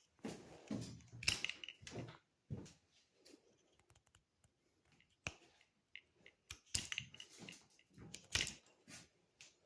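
Handling noises from a knife: quick clicks, crackles and scrapes in two clusters, one in the first two seconds and another from about six and a half to nine seconds.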